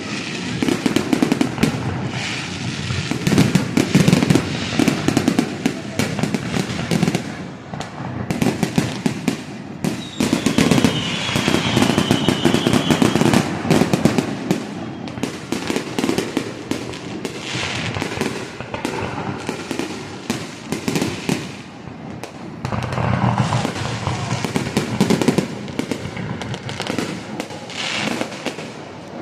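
Fireworks display going off in a dense, nearly continuous barrage of booming bursts and crackling. A wavering whistle rises above it about ten seconds in.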